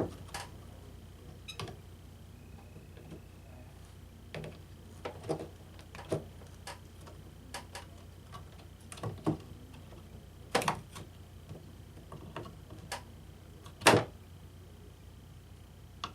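Irregular clicks and knocks of pliers and a circuit board being handled as the control board is worked off the white plastic clips that hold it to the ionizer's power board. The loudest knocks come about ten and fourteen seconds in.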